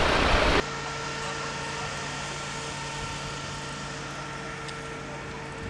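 A loud rush of noise cuts off suddenly about half a second in, giving way to a steady machine hum with several held tones, of the kind given off by idling emergency vehicles at a fire scene.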